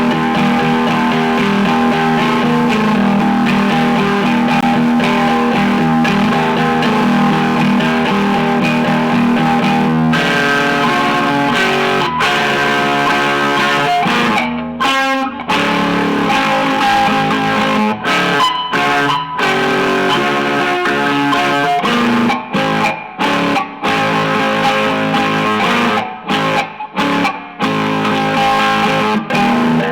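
Electric guitar being played: held, ringing chords for about the first ten seconds, then phrases of notes broken by several short pauses.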